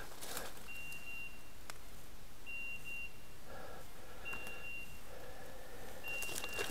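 Electronic beeper collar on a hunting dog beeping: a steady high single-tone beep about half a second long, repeated four times at even spacing of just under two seconds.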